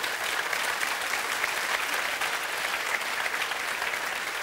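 Live audience applauding steadily: dense clapping from a large seated crowd.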